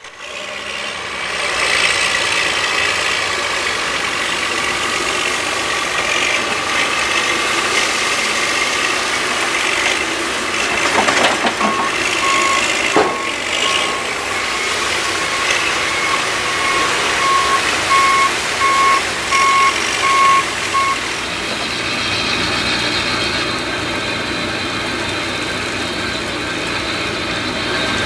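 Heavy machinery engines running steadily at a snow-melting site, with a vehicle's backup alarm beeping in an even pulse for about ten seconds in the middle.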